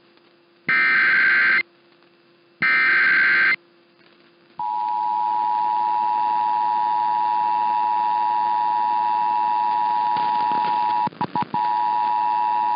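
Two bursts of EAS SAME header data, each about a second long and a second apart. About four and a half seconds in, the steady two-tone EAS attention signal starts and holds, with a brief stutter of dropouts near the end. Together they mark the start of an emergency alert broadcast, here a flash flood warning.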